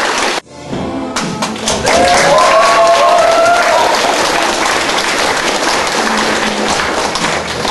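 Audience applause that cuts off abruptly about half a second in, then music starts, with clapping continuing under it.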